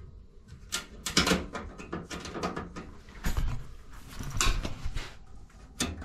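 Irregular light clicks and taps with some rustling: hands working at the sheet-metal flue and its barometric draft damper.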